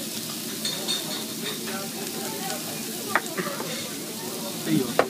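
Beef tongue and chopped green onions sizzling steadily on a tabletop yakiniku grill, with a sharp click about three seconds in and another near the end.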